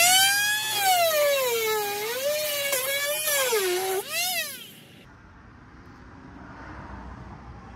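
Cordless Dremel-type rotary tool running at high speed and cutting into a bumper-mount bracket: its high whine sags in pitch as it bites, recovers, and sags again. After one last quick rise and fall about four and a half seconds in, it spins down and stops.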